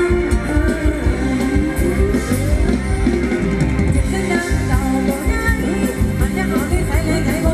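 Live band playing Thai ramwong dance music: a singer over electric guitar and drum kit, with a steady beat.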